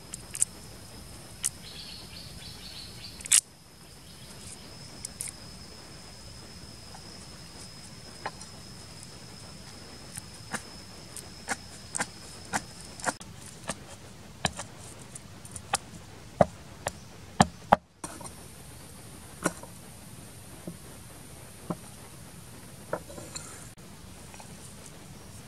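Scattered sharp taps of a kitchen knife striking a cutting board as garlic and chilies are chopped, one or two a second. Under them, an insect's steady high-pitched trill runs until about halfway through.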